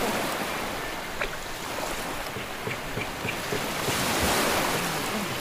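Shallow sea water lapping and washing close to the microphone, with a louder rush of water about four seconds in.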